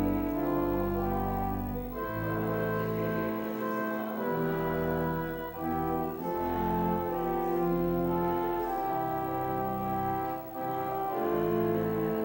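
Church organ playing a slow hymn tune in held chords over low bass notes, the chords changing every second or so.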